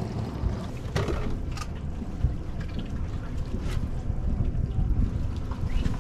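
Boat engine running steadily under wind buffeting the microphone, with a few sharp knocks.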